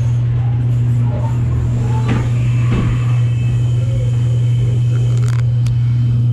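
Dark-ride car rolling along its track, its running gear giving a loud, steady low hum, with a few faint clicks and knocks about five seconds in.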